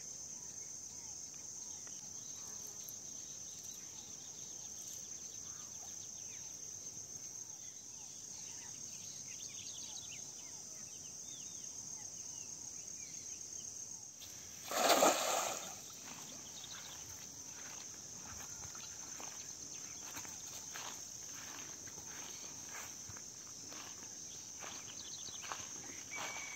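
Steady high-pitched insect trill, with a single splash about halfway through as a thrown cast net lands in the pond.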